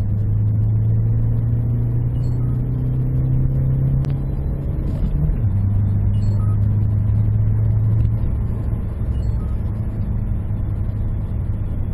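Ford Mondeo MK4's 1.8 TDCi four-cylinder diesel engine heard from inside the cabin under hard acceleration: its note rises slowly, drops sharply at a gear change about five seconds in, then pulls again. The note eases and steadies about eight seconds in.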